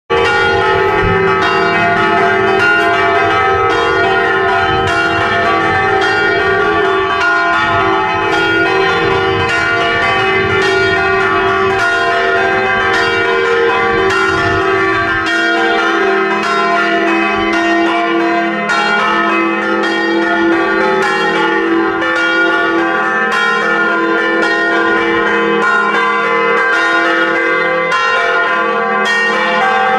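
Church tower bells ringing continuously in a dense, overlapping peal, struck many times over, calling the village to a feast-day service. A low rumble under the bells stops about halfway through.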